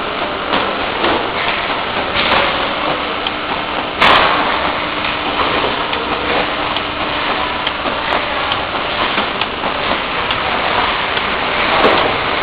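Automatic bottle conveying and labelling line running: a steady mechanical din with many small clicks, and a sharp knock about four seconds in.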